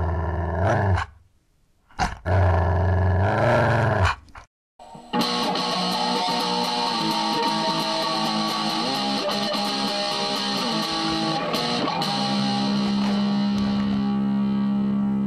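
A wolf growling twice, once at the start and again about two seconds in, each lasting about a second and a half. Then guitar music starts about five seconds in and runs on steadily.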